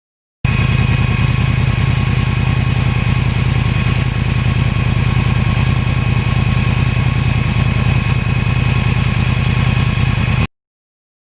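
2009 Yamaha R1 crossplane inline-four, with an aftermarket exhaust, idling steadily. It cuts in abruptly about half a second in and cuts off abruptly near the end.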